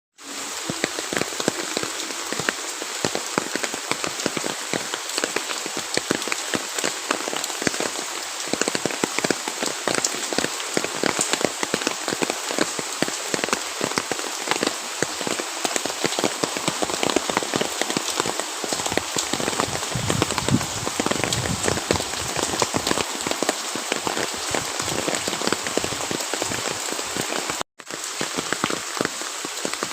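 Steady rain falling, a dense hiss with many individual drops ticking sharply on a hard surface. It cuts out for a split second near the end.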